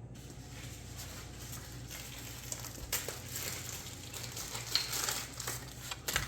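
Rustling, crinkling handling noise from brake pads and their packaging being handled, with a few light clicks and knocks about three, five and six seconds in, over a low steady hum.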